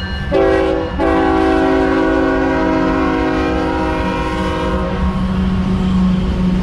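Freight locomotive air horn sounding a multi-note chord: a short blast, then a long blast of about four seconds. It plays over the low, steady rumble of the passing train, which carries on after the horn stops.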